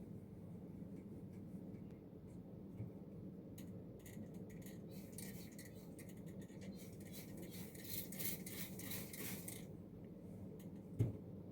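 Faint kitchen handling sounds over a low steady hum: a run of quick, crisp scraping or rubbing strokes lasting several seconds in the middle, then a single knock near the end.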